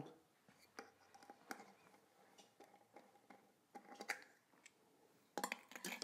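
Faint scattered clicks and light knocks of a chrome basin tap being taken apart by hand, with a short cluster of louder clatter from metal tools handled in a ceramic basin about five and a half seconds in.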